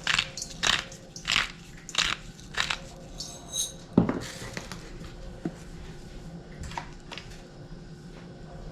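Pepper mill being twisted, a crunching grind about every two-thirds of a second for the first few seconds, then a single loud knock about four seconds in, followed by a few faint clicks.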